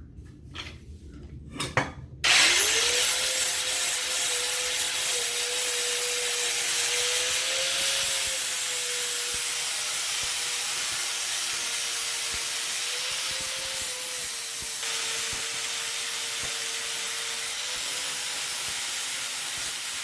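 A high-speed rotary power tool starts about two seconds in and runs steadily with a high whine and hiss, its pitch dipping slightly now and then as it bears on the metal. It is cleaning melted gasket residue off the turbo manifold flange so a new gasket will seal.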